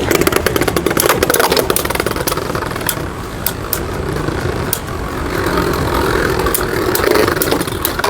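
Two Beyblade Burst spinning tops, Vise Leopard and Bloody Longinus, whirring against each other in a plastic stadium, with many sharp clicks as they hit.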